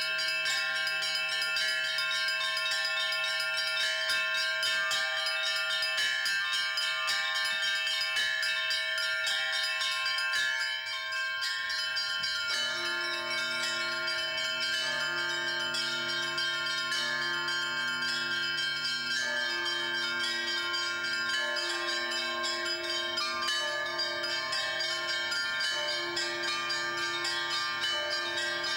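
Peal of St Sophia Cathedral's bells: small high bells struck rapidly and continuously over deeper bells. The deeper bells drop out briefly about eleven seconds in, then come back stronger and keep sounding underneath.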